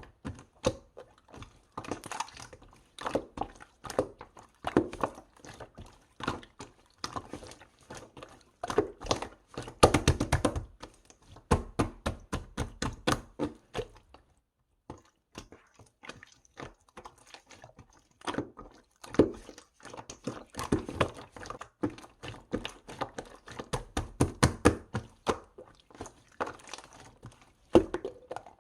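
Slime being squished, poked and pressed by hand, giving quick runs of sticky clicks, pops and soft thuds, with a brief break of silence about halfway through.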